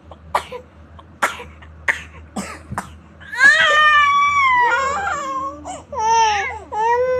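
A baby coughs four times in quick succession, then breaks into loud crying with long wails that rise and fall in pitch. The coughing comes from a fit of angry, upset crying.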